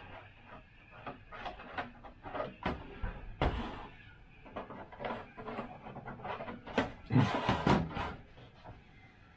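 Hands handling hard 3D-printed plastic model-plane parts: a string of irregular clicks and knocks, with a longer, louder scraping rattle about seven seconds in.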